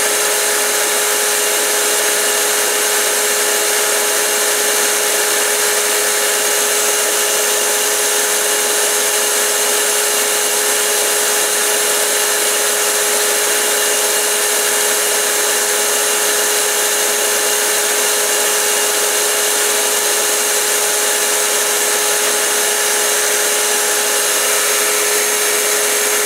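Belt grinder running with a steady hum over an even hiss while a knife edge is sharpened on the slack, unsupported part of a 500 grit abrasive belt, smoothing a coarser 220 grit edge.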